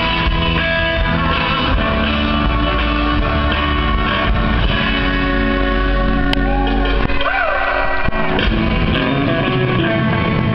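Country-rock band playing live through a PA, with guitars and singing. About seven seconds in the low end drops away and a few falling glides in pitch are heard.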